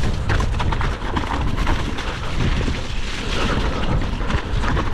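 Electric mountain bike descending a wet, rooty trail: a constant low rumble of wind buffeting the camera microphone, with many small knocks and rattles as the tyres run over mud and roots and the bike clatters.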